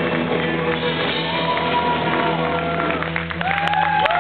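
A live band of electric bass, electric guitar and drums playing a funk cover, with steady held low notes. Near the end, whoops and cheers from the audience start to come in.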